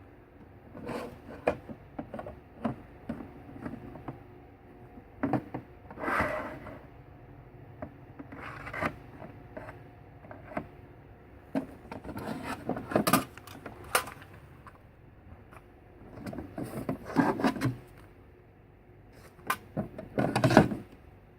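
Handling noises: scattered clicks and knocks and several short scraping rubs, with no motor running. The loudest rubs come about 6, 13, 17 and 20 seconds in.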